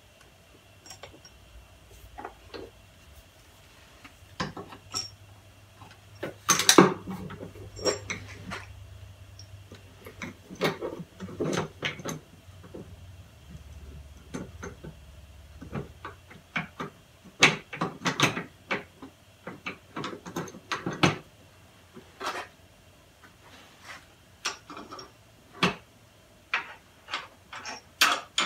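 Hand tools and metal parts clinking and tapping against a compressed-air engine's cylinder as it is put back together. The sound is a series of irregular clicks and knocks, the loudest cluster coming about a quarter of the way in.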